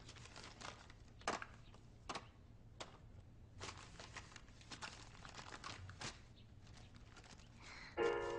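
Paper record sleeves rustling and crinkling as shellac records are slid in and out, with faint scattered clicks of handling. Music starts near the end.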